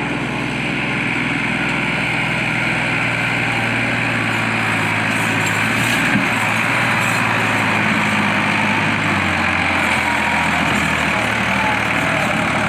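Diesel tractor engine running hard under heavy load, straining to pull a loaded sugarcane trolley out of mud.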